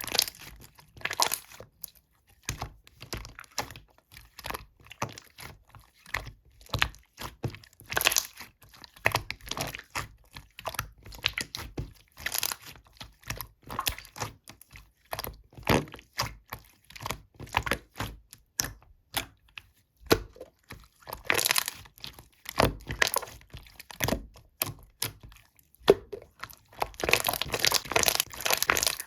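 Slime being squished and pressed by hand, giving a continual string of small sticky pops and crackling clicks, which become a dense run of crackles near the end.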